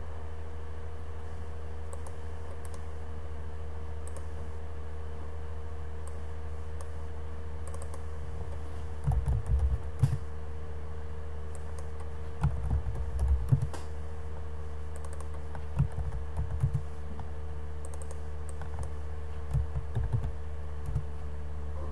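Typing on a computer keyboard in four short bursts over a steady low hum.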